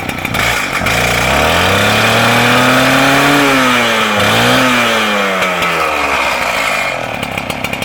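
Stihl TS700 two-stroke cut-off saw revved up from idle, its pitch climbing to a high rev, dipping briefly, rising again, then falling back to a rapid idle near the end. The freshly started saw runs cleanly, with a new spark plug fitted after it had failed to start.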